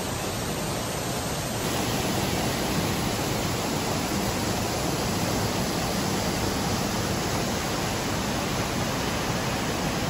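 Waterfall: a steady rush of falling water, a little louder from about a second and a half in.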